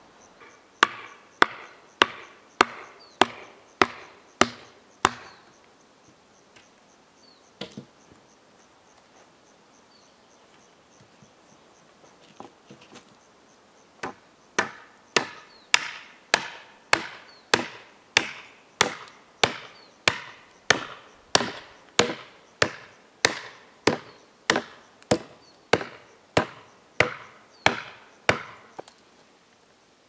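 Hatchet blows on a wooden pole, sharp and evenly spaced at about one and a half a second: a run of about eight, then after a pause a longer run of about twenty. Insects trill faintly underneath.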